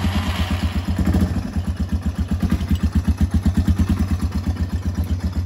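A Yamaha TTR dirt bike's single-cylinder four-stroke engine, just started, idling with even, rapid firing pulses. It starts up easily and runs steadily.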